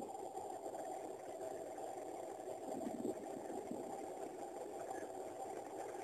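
Waste oil furnace running, its burner making a steady rushing noise.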